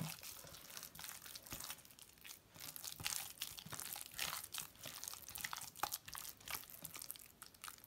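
A hand kneading a wet vegetable burger mixture in a glass bowl: a faint, irregular run of soft squeezing and sticky sounds.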